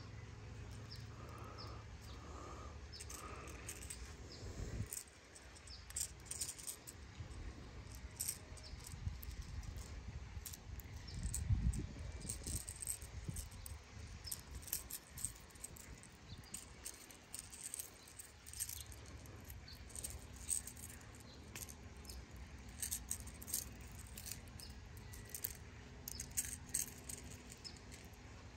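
Light clicking and rattling of a hard plastic minnow lure and its treble hooks as they are worked out of a largemouth bass's mouth by hand, over a low rustle of handling with a louder low bump near the middle.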